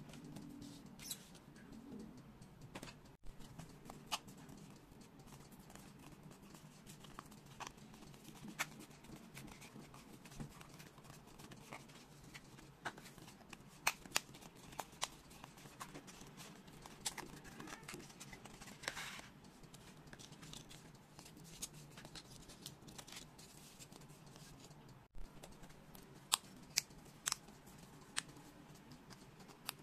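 Foam 3D puzzle pieces being handled, bent and pressed together: scattered irregular clicks and ticks with soft rustling, a longer rustle about two-thirds of the way through, and a run of sharper clicks near the end, over a low steady hum.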